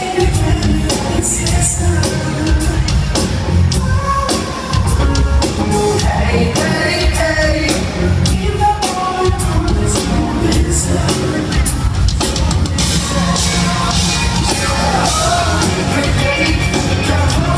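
Live band performing, loud, with a singer over drums and amplified instruments, picked up by a phone in the audience of a large concert hall.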